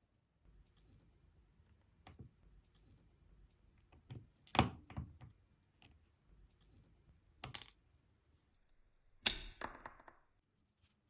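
Sharp clicks and taps of small metal watch parts and tools during a watch restoration, a few at a time. Near the end one hit rings briefly with a high metallic tone.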